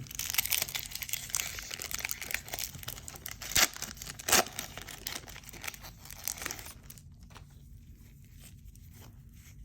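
Crinkly wrapper of a 1990 Score football card pack being torn open, with two sharp rips around the middle; the crinkling dies down for the last few seconds.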